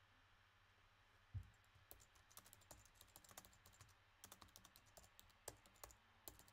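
Faint typing on a computer keyboard: a quick, irregular run of key clicks, preceded by a single low thump.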